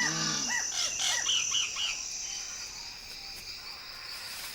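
Cacique birds calling: a few short looping whistled notes in the first two seconds, over a steady high-pitched insect trill that continues after the calls stop.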